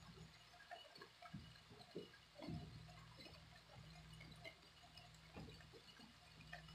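Near silence: room tone with a steady low hum and a few faint, soft knocks scattered through it.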